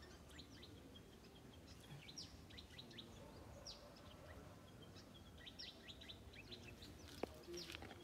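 Faint, scattered chirps of small birds, many short high notes that each sweep downward, over a quiet background. A single sharp click about seven seconds in.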